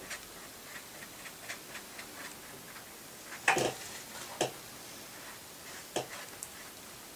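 Light clicks and taps of a paintbrush and painting gear handled on a watercolour palette and work table: a run of small irregular clicks, then three louder knocks about three and a half, four and a half and six seconds in.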